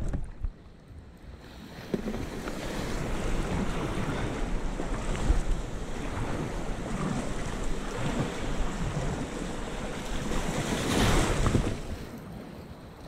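Sea water washing around a kayak, with wind buffeting the microphone. Quieter at first, it picks up about two seconds in and swells to its loudest near the end.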